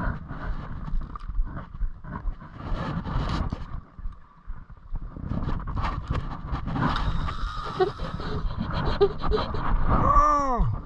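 Wind rumbling and buffeting on the microphone out on open water, rising and falling unevenly. About ten seconds in, a stacked sweeping tone bends up and then down for under a second.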